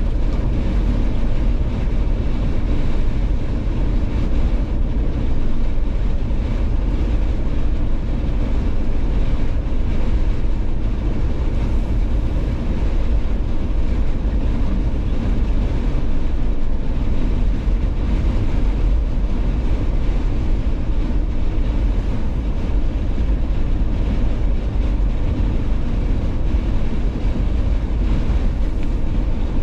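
A Jeep driving: a steady low rumble of engine, tyres and wind, with no change in pace.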